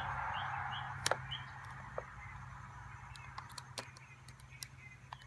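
Utility knife blade cutting along a thick bead of caulk around an RV light housing: faint scratching with scattered small clicks, and a few short high chirps in the first second and a half.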